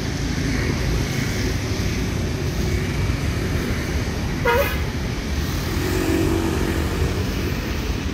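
Steady road-traffic noise from cars and motorbikes, with one short horn beep about four and a half seconds in.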